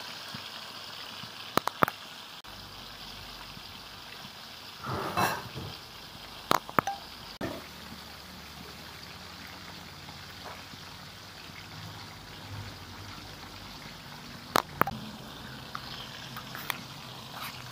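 Water running and splashing in a steady wash of noise. A few sharp knocks break in: a pair about 1.5 s in, a splashy swell about 5 s in, another pair about 6.5 s in and one more near the end.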